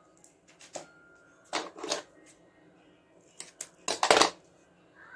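Foil-faced butyl sealing tape crinkling and rustling in the hands as cut pieces are handled and their backing is peeled: several short, separate bursts, the loudest about four seconds in.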